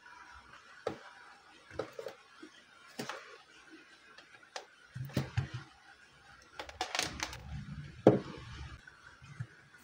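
Handling noise from a microphone cable and plastic casing: scattered clicks and knocks, the loudest a sharp click about eight seconds in as the mic's jack plug is pushed into the socket of a Smart Hafiz children's learning device. A low rumble comes and goes in the second half.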